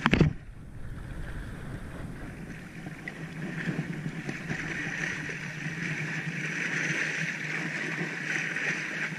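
Sea water washing and splashing against breakwater rocks, a steady rushing sound, with wind on the microphone. A brief loud knock of handling right at the start.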